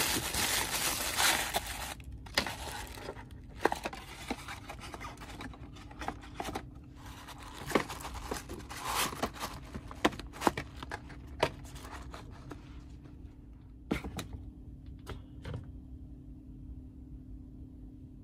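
Tissue paper crumpled and rustled in the hands, a dense crinkling for about the first two seconds, then scattered rustles, taps and scrapes as cardboard box flaps are folded and handled.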